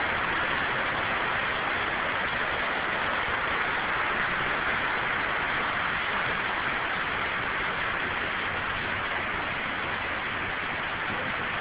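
Steady rushing hiss of falling water from an artificial waterfall, even and unbroken throughout.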